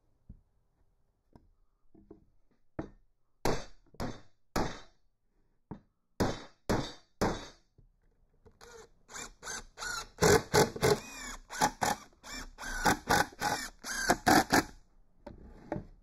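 Hammer blows on the wood of a box-jointed hive body, tapping the glued finger joints home. There are about seven spaced strikes, then a fast run of several strikes a second that is the loudest part.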